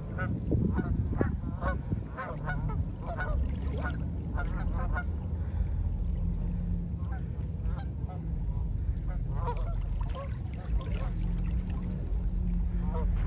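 A flock of Canada geese honking on the water: many overlapping calls for the first five seconds or so, then scattered honks. A low wind rumble on the microphone runs underneath.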